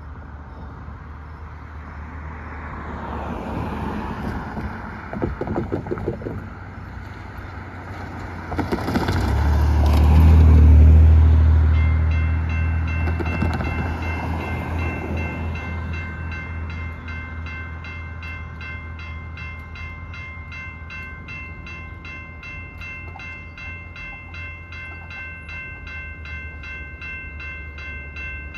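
Road traffic passing over the railroad grade crossing, with one loud vehicle going by about a third of the way in. About twelve seconds in, the crossing bell starts ringing with a steady repeating ding and keeps going as the gates come down, warning of an approaching Metra train.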